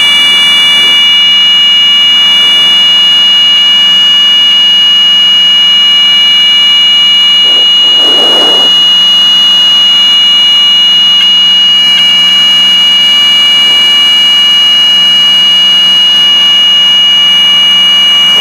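Piper Seneca cockpit: the twin engines and propellers drone steadily under a loud, unbroken high-pitched tone, with a brief soft sound about eight seconds in.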